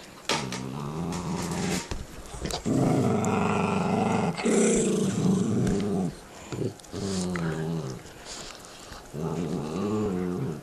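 Dogs growling over their bones: about five long growls, each wavering in pitch, with short breaks between them, loudest in the middle.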